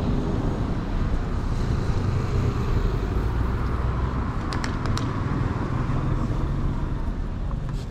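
Street traffic: passing cars with a steady low engine rumble, and a few light clicks about halfway through.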